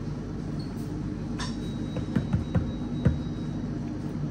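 A few short, dull knocks in quick succession about two to three seconds in, over a steady low room hum, with a faint thin high tone in the middle.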